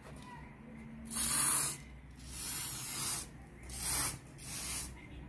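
Aerosol air-freshener can spraying in four short hissing bursts, the first the longest and loudest.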